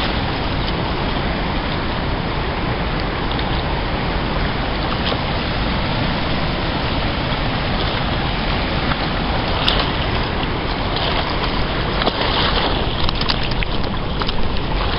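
Steady rushing noise of fast, churning river water, with a few sharp clicks and knocks about two-thirds of the way in and near the end.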